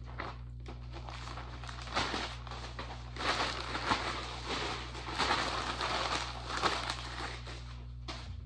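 Rustling and crinkling with many small knocks and clicks as things are handled and rummaged through, over a steady low hum.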